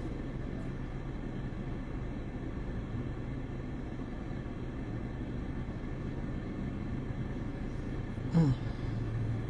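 Steady low hum of a car's cabin, with a brief vocal sound from a woman about eight seconds in.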